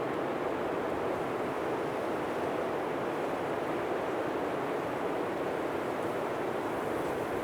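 Blizzard wind blowing steadily: an even rushing noise with no gusts, lulls or breaks.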